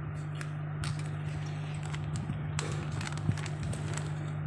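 Parcel packaging being handled and opened, with scattered short rustles and taps and one sharper tap about three seconds in, over a steady low hum.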